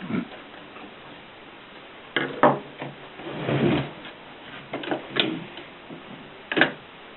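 Mignon 4 index typewriter being worked: scattered mechanical clicks and clacks, with a longer rasping mechanism sound about three seconds in and a sharp clack near the end.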